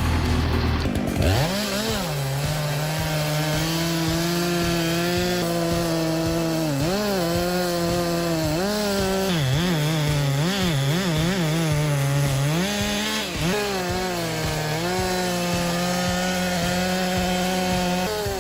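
Two-stroke chainsaw revving up about a second in, then running at high speed through a cut. Its pitch dips and recovers several times in the middle as the chain bogs down in the wood.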